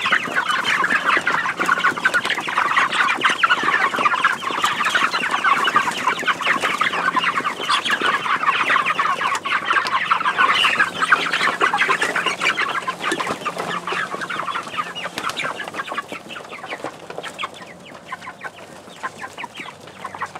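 A flock of meat chickens calling in a dense, overlapping chorus of short cheeps, excited at feeding time. The chorus is loud for the first dozen seconds, then fades over the last several.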